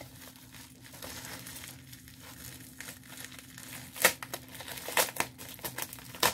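Packaging being handled, crinkling and rustling, with sharper crackles about four and five seconds in and again near the end.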